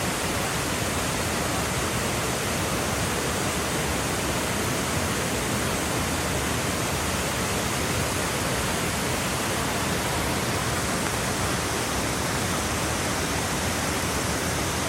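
Shiraito Falls, a wide curtain of many thin streams of spring water falling over a low rock face, splashing in a steady, even rush.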